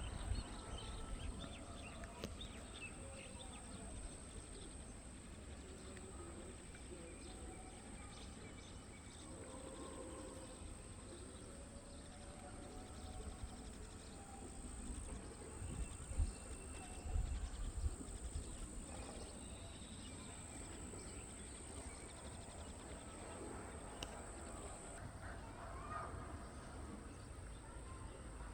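Faint outdoor background noise: a steady low rumble and a steady high hiss, with scattered faint indistinct sounds.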